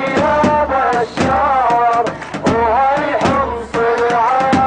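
A man's voice singing a melodic Arabic protest chant in long, gliding phrases, with drum strikes between the phrases.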